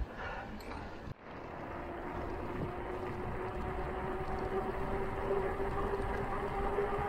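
Loaded touring bicycle rolling down a paved road, a steady hum from the wheels that creeps up in pitch as it gathers speed, with wind on the microphone. A brief dropout about a second in.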